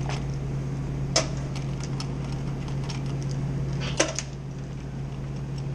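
Clicks and knocks from handling a refrigeration manifold gauge set and its hoses, with two sharper clicks, about a second in and again about four seconds in, over a steady low hum.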